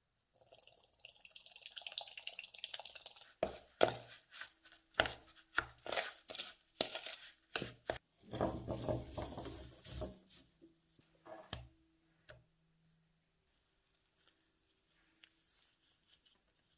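A dry ingredient hissing as it is poured into a plastic bowl. Then a run of sharp knocks and a stretch of crinkling as clear plastic film is handled, fading after about twelve seconds to faint rustles as the film is smoothed flat.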